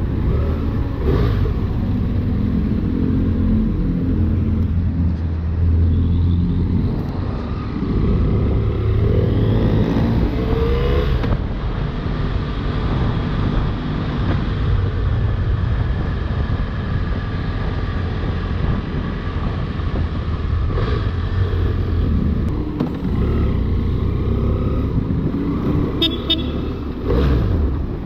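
BMW F800R's parallel-twin engine running while ridden, rising in pitch as it accelerates about ten seconds in. A short high-pitched tone sounds about two seconds before the end.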